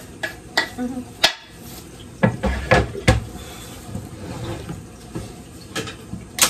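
Kitchen clatter: irregular sharp knocks and clinks of a knife and utensils against the counter and dishes. The loudest come about two to three seconds in and just before the end.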